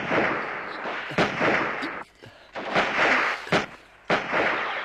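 Gunshots in a firefight: about five loud shots roughly a second apart, each with a short noisy tail.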